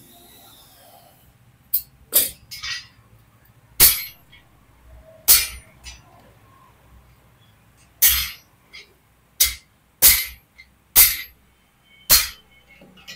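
Steel striking steel: about ten sharp, loud clanks at irregular intervals, some with a short metallic ring.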